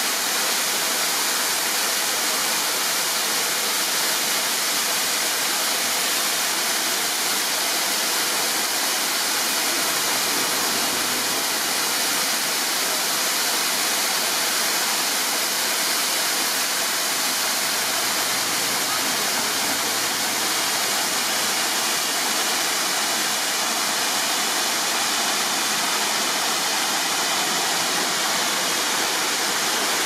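Capra Waterfall's water cascading down steep rock ledges: a steady, even rushing with no change throughout.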